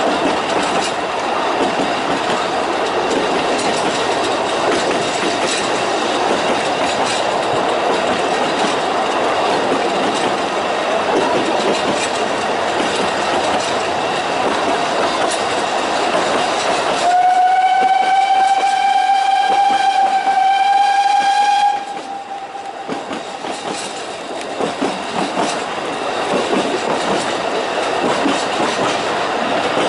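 Narrow-gauge steam train running, heard from a carriage window: a steady rattle of wheels on rail joints. About halfway through, the locomotive's steam whistle gives one long blast of about five seconds, rising slightly in pitch, then stops sharply.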